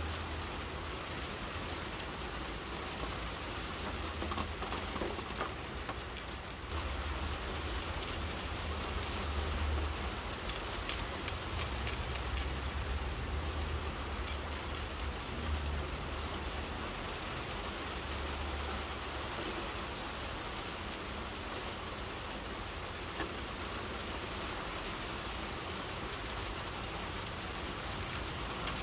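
Steady rain falling, with a low rumble coming and going underneath. There is a single light knock near the end.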